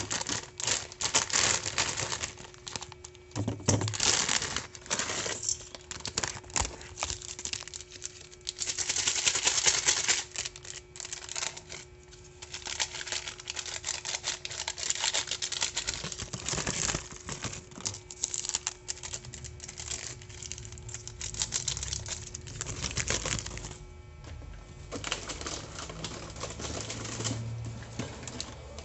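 Plastic food wrappers crinkling and crackling as hands handle them: an instant ramyun packet and a plastic-wrapped pack of hotdogs, with short quieter gaps between stretches of rustling.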